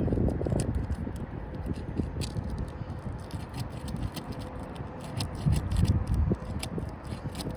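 Sealed-down asphalt roof shingles being worked loose to break the seal: scattered scraping and small clicks, with a louder low scuffing about five and a half seconds in.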